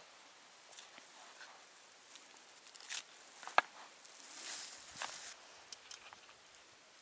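Scattered light rustles and small clicks, with one sharp click about three and a half seconds in and a longer rustle soon after.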